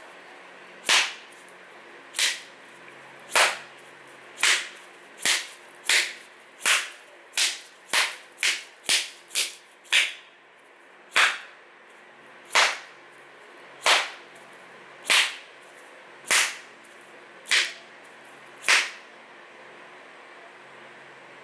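A series of about twenty sharp hand slaps, one every second or so at first, quickening to about two a second in the middle, then slowing again.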